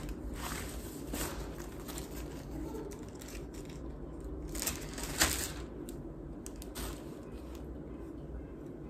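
Rustling and crinkling of a plastic bag and clothes being handled and folded, irregular and uneven, with the loudest crackle a little past halfway through.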